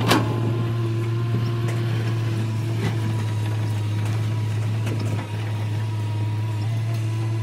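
L&T Komatsu crawler excavator's diesel engine running steadily as the machine digs in the pit, with a sharp metallic clank right at the start as the bucket hits the ground, and a few faint knocks later.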